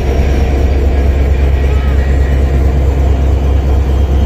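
Diesel-electric locomotive engine running with a loud, steady deep rumble as the locomotive rolls slowly along the platform.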